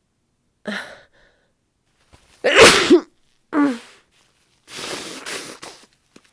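A woman with a head cold sneezes loudly. A sharp voiced intake of breath comes about a second in, and the sneeze bursts out a second and a half later. A shorter voiced sound follows, then about a second of breathy rushing noise.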